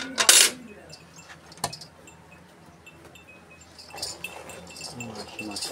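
Metal milk-bucket handles clanking and ringing as a steel pail is grabbed and lifted, with a sharp clink about a second and a half in. From about four seconds in, fresh milk is poured from the steel pail into a galvanized bucket.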